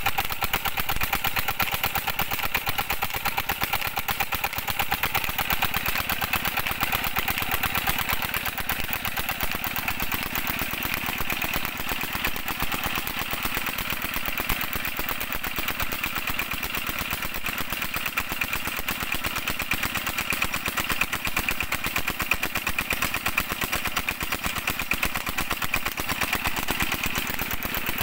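12 hp Petter diesel engine running steadily with a rapid, even chug while belt-driving a tube well pump.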